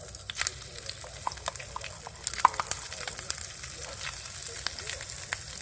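Buttered broccoli sizzling as it reheats, with many irregular sharp pops of spattering butter over a steady hiss.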